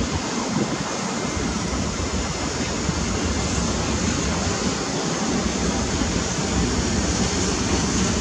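Taiwan Railways E300-class electric locomotive hauling freight wagons as it departs, a steady low rumble of motors and rolling wheels that grows slightly louder as it approaches.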